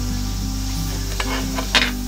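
Background music with held low notes and a simple melody stepping every half second or so, with a few brief rustling clicks over it, the loudest near the end.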